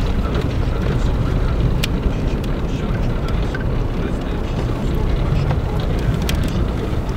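Steady low rumble of vehicle engine and running gear over snow, with a few light clicks scattered through.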